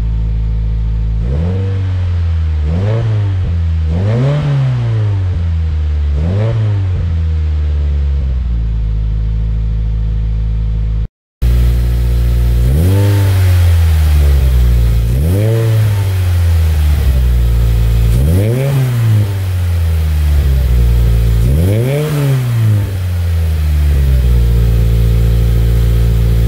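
Subaru WRX's turbocharged flat-four idling and blipped four times (twice to about 3000 rpm, twice to about 4000 rpm) through a Cobb catted J-pipe and Cobb titanium cat-back on the stock header. After a short break the same two 3000 and two 4000 rpm revs are repeated with a Killer Bee Swain-coated header added ahead of the J-pipe.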